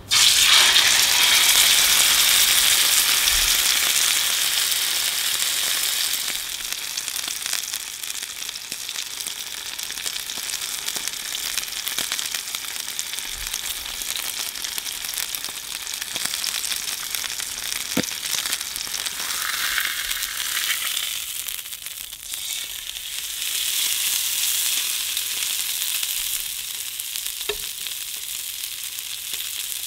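Steak frying in hot oil on a flat griddle plate over a gas burner, with a sizzle that starts sharply and loud, then settles to a steadier sizzle that swells now and then.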